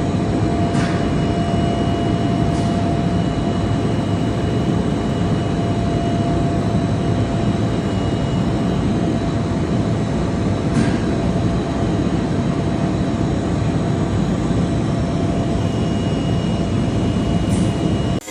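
Machinery running steadily: a loud, even roar carrying a constant high whine, with a few faint ticks now and then, cutting off suddenly at the end.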